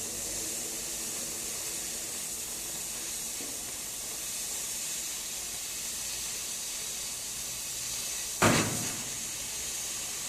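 Oxy-fuel cutting-torch machine hissing steadily as it cuts through 10 mm Hardox steel plate. One sudden loud bang comes about eight and a half seconds in.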